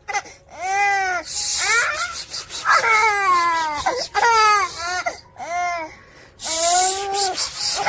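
A baby's high-pitched squealing vocal sounds: a string of short, arching squeals with breathy gasps between them.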